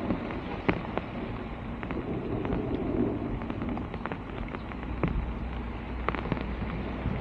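Rushing floodwater with irregular sharp clicks and knocks, as garbage and debris are worked loose from a clogged street drain.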